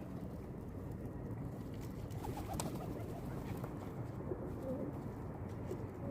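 Pigeons cooing over a steady low rumble of background noise.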